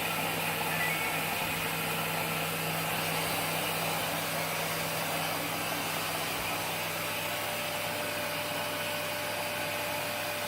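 Samsung WW80J5555FA front-loading washing machine filling with water at the start of its cycle: a steady rush of water with a constant low hum, and a faint higher tone joining about seven seconds in.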